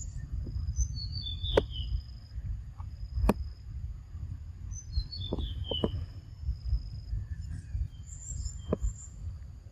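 A wild bird singing: a short chirping phrase that falls in pitch, heard about a second in and again about five seconds in, over a steady high tone and a low rumble. Several sharp clicks cut through, the loudest near the start.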